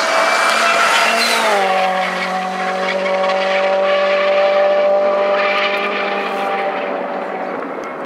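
Ford Fiesta rally car engine at high revs passing close by. Its pitch drops about a second and a half in as it goes past, then holds a steady note as the car pulls away down the road.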